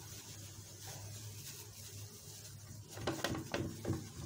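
Gloved hands rustling shredded kunafa pastry as it is spread into the gaps of a metal baking tray. About three seconds in, a quick series of pats as the pastry is pressed down.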